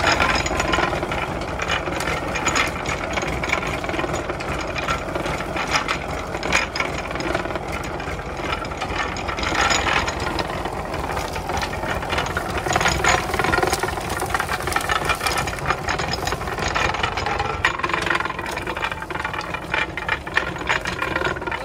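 Tractor-driven sugarcane crusher running: the engine's steady beat under the rattling and clicking of the geared iron rollers as cane stalks are fed through and crushed for juice. The crusher's bearings are freshly greased and it is running well.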